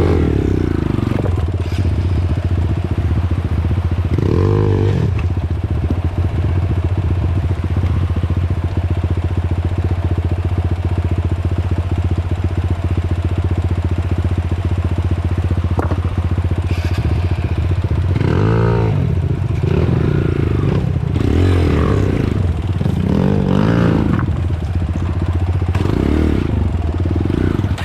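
Dirt bike engine running steadily at low revs, revved briefly about four seconds in and blipped several times in the last ten seconds.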